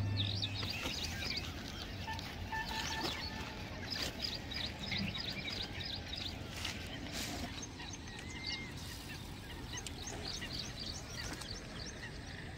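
Birds chirping and calling over a steady outdoor background noise, with many short chirps repeating throughout.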